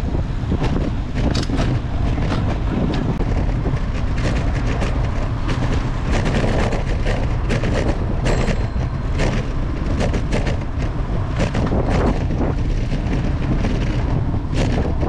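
Wind buffeting the microphone of a camera on a moving bicycle: a loud, steady low rumble broken by frequent sharp knocks and rattles from bumps in the road.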